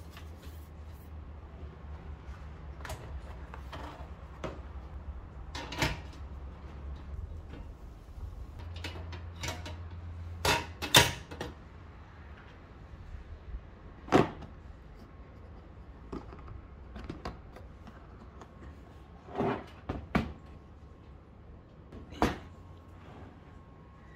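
Handling noises from unboxing a portable single-burner gas stove: scattered clicks and knocks of the stove and its packing being moved, with a few louder knocks around the middle.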